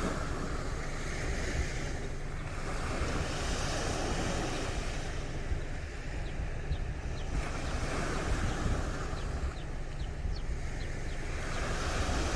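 Sea waves breaking and washing up a beach, the surf swelling and falling back every few seconds, with wind rumbling on the microphone.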